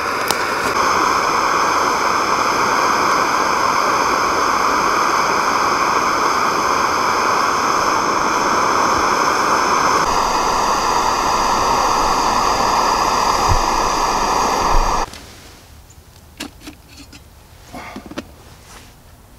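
Fire Maple Fixed Star X3 canister gas stove burning at full flame under its pot of water: a loud, steady hiss of burning gas with faint high tones above it. About fifteen seconds in the hiss stops abruptly, leaving only a few faint clicks.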